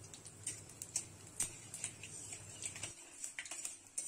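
Panch phoron seeds and dried red chillies crackling and popping in hot mustard oil in a kadai while a metal spatula stirs them; the pops are sharp and irregular. A low hum under the crackle stops about three seconds in.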